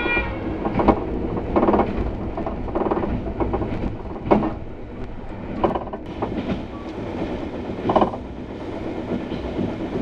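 Y2 diesel railcar running at speed, heard from inside the carriage: a steady rumble with irregular knocks of the wheels over the rails. A horn blast cuts off just at the start.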